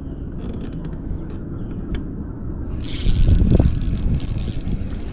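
Steady wind rumble on the microphone, with a few light clicks early, then a loud burst of rubbing and knocking from about three seconds in to about four and a half seconds in as a hand grips the camera mount right at the microphone.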